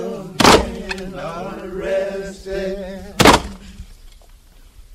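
Background music with a chanted, sung vocal line and two heavy percussive hits, one about half a second in and one a little after three seconds; the voice fades out near the end.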